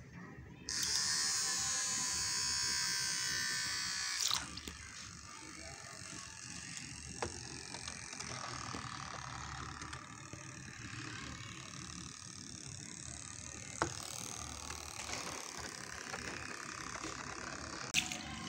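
Small DC motor of a homemade toy boat switching on and whirring loudly with its propeller spinning in air. After about four seconds it drops to a quieter steady whir as the propeller runs in the water, with a few light knocks.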